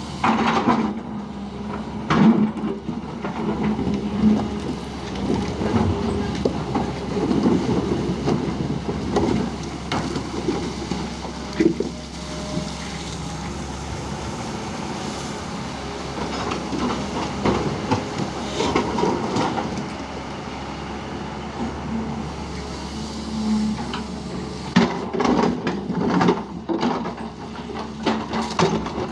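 JCB backhoe loader at work digging, its diesel engine running steadily under load while the bucket and arm knock and clank repeatedly.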